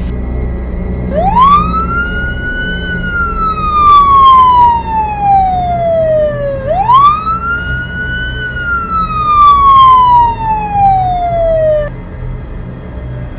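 Police siren wailing twice, each wail rising quickly and then falling slowly, with a few sharp knocks along the way.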